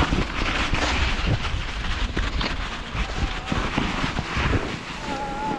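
Mountain bike descending a muddy, slushy trail: tyres rolling through mud and wet snow, with the bike rattling and knocking over bumps and wind rumbling on the microphone.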